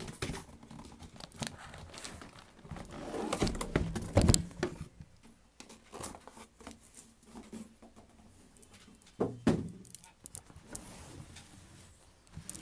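Cardboard shipping box and shoebox being handled and opened: rustling, scraping and light knocks, with louder bursts about three to four seconds in and again near ten seconds.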